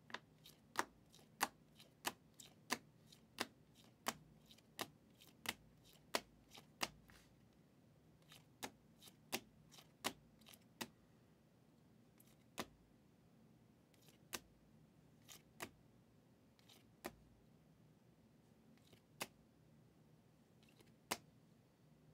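Hard plastic trading-card holders clicking against one another as a stack of cased cards is flipped through one at a time. The clicks are sharp and come about three every two seconds at first, then more spread out.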